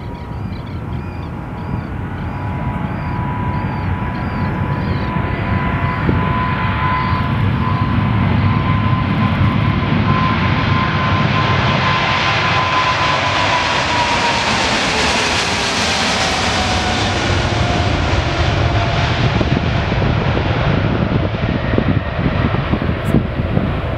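Boeing 777-200's twin GE90 turbofan engines at take-off thrust as the jet passes. The engine noise builds over the first ten seconds and is sharpest about sixteen seconds in, while a whining tone drops in pitch as it goes by.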